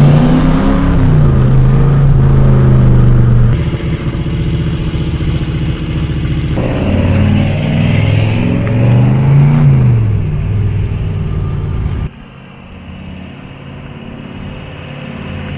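427 Cobra roadster's V8 engine accelerating away, its pitch climbing and falling back with the gear changes. About three-quarters of the way through it drops suddenly to a quieter, more distant engine note.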